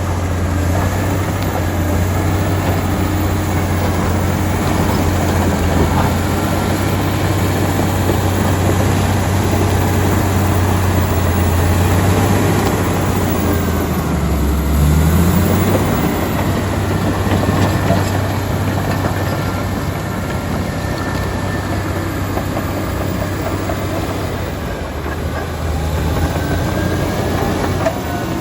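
Komatsu D85EX crawler dozer working: its diesel engine runs steadily under load with the clatter of its steel tracks, the engine note dipping and then rising briefly about halfway through.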